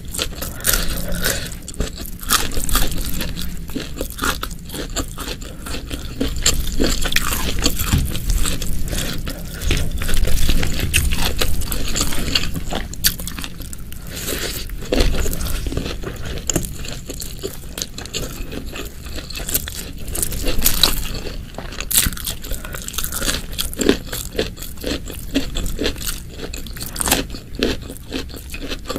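A person eating close to the microphone: biting and chewing with a steady run of quick wet mouth clicks and smacks.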